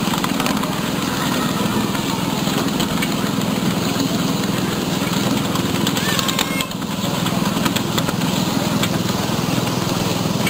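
Ride-on miniature train running along its track, a steady mechanical running noise with a few short clicks about six seconds in.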